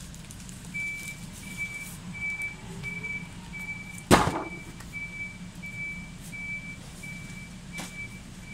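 Electronic warning beeper sounding steadily, about two short high beeps a second, over a constant low hum. A single sharp, loud knock about four seconds in.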